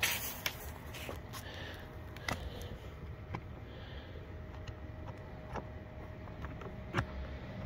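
Quiet handling noise: a few scattered light clicks and taps at irregular intervals, over a faint steady hum.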